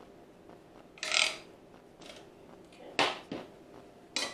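A plastic serving spoon scraping and knocking against a pan and a bowl of food: three short scrapes and knocks, the first about a second in.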